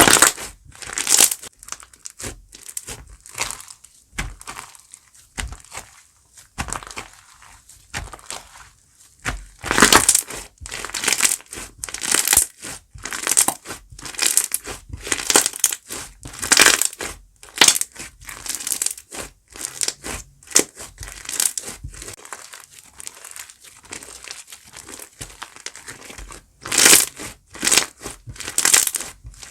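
Foam slime being squeezed and pressed by hand, giving irregular crunchy, crackling bursts about once a second, louder around the middle and near the end.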